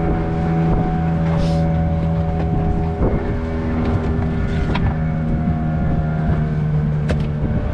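Fishing boat's engine running steadily under way, a constant hum that falters briefly about three seconds in.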